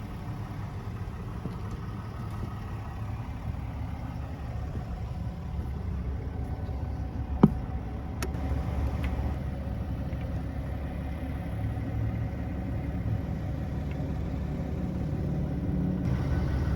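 Low, steady rumble of a motor vehicle engine idling, with one short sharp squeak or click about seven and a half seconds in.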